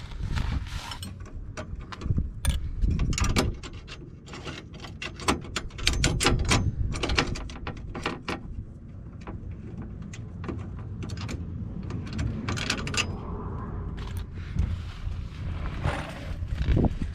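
Hand tools and metal parts at work on a car's underside: irregular metallic clicks, clanks and ratchet-like clicking over a low rumble.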